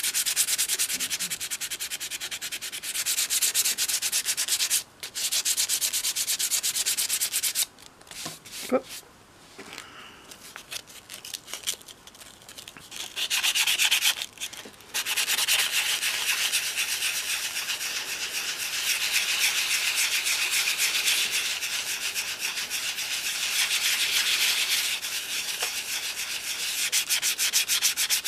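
Hand sanding a doll's head thickly coated with filler, using a small piece of sandpaper: quick, scratchy back-and-forth rubbing strokes. The strokes stop twice briefly and pause for a few seconds about eight seconds in, then resume.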